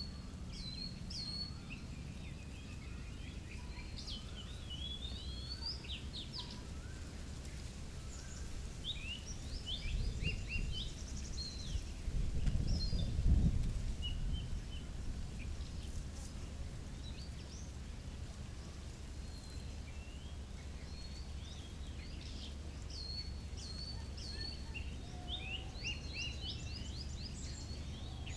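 Small birds chirping, many short, quick notes that sweep up and down in pitch, coming in clusters throughout. Under them runs a steady low rumble that swells briefly about halfway through.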